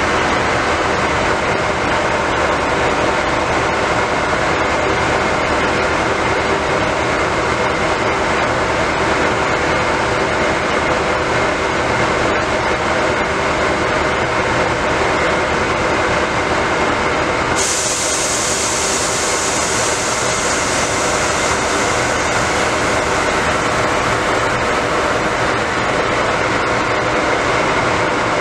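MARC commuter train standing close by with its diesel engine running: a loud, steady drone with a constant whine in it. A high hiss comes in suddenly about two-thirds of the way through and carries on.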